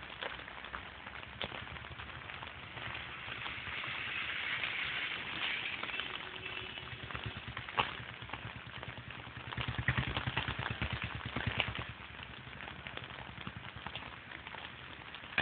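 Steady rain falling, with a low, rapid mechanical throbbing underneath that grows loudest about two-thirds of the way through.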